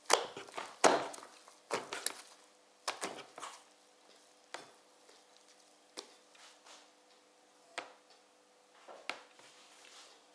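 Soft, sticky brioche dough being slapped and worked by hand on a floured board: a run of irregular slaps and knocks, loudest in the first couple of seconds, then spaced single knocks.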